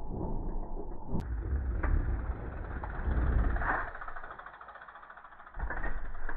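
Trek Farley 27.5 fat bike's wide knobby tyres rumbling over a dirt trail as the bike rides past close by, with a few thumps from the wheels over bumps and a jump.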